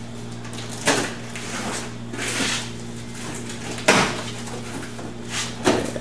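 A cardboard shipping box being slit open with a razor blade and its flaps pulled apart: several scraping, rustling strokes and sudden knocks of cardboard, the sharpest about four seconds in. A steady low hum sits under it.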